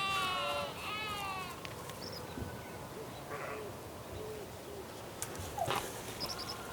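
An animal calls twice in quick succession at the start, two short wavering cries, followed by fainter scattered calls from farm animals.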